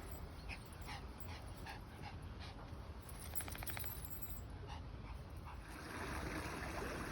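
A dog whimpering in short, repeated high whines, about two a second. From about six seconds in, a steady rush of water rises beneath them.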